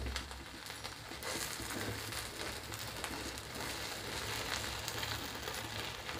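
Bread omelette frying in butter in a nonstick pan on a low gas flame: a faint, steady sizzle with fine crackling.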